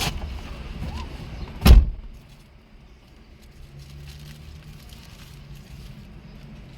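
A vehicle's low running rumble, cut by a single loud thump nearly two seconds in, after which only a faint low hum remains.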